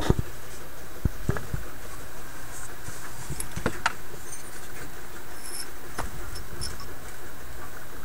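Handling noise: scattered knocks and clicks as a metal radio chassis is handled and the camera moved around it, over a steady background hiss.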